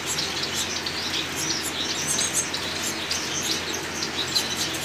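A mixed flock of caged finches (Gouldian, star and Bengalese finches) chirping, many short, high chirps overlapping without pause.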